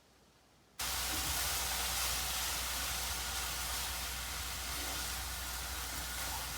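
Hokkien noodles frying in a pan over lowered heat: a steady, soft sizzling hiss with a low hum under it, starting after about a second of silence.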